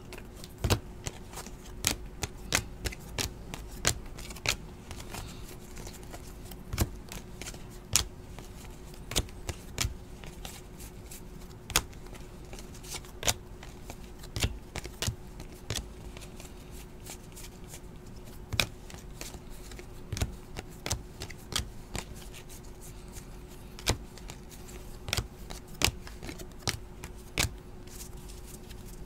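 Donruss basketball trading cards being thumbed through and flicked off a stack one at a time by hand, an irregular run of sharp card-on-card clicks and snaps, with a faint steady hum underneath.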